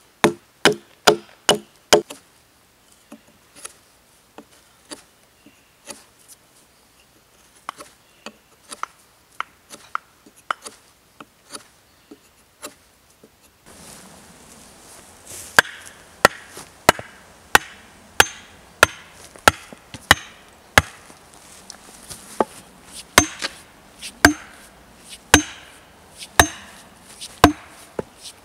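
Hatchet chopping a point onto a wooden stake: a quick run of hard strokes, then lighter, slower cuts. About fourteen seconds in, a steady series of heavy wooden knocks, about one and a half a second, as the sharpened stake is driven into the ground.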